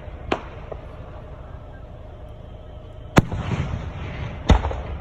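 Aerial fireworks shells bursting: three sharp bangs, one early and two near the end about a second apart, the first of those two the loudest, each trailing off in a short echoing rumble.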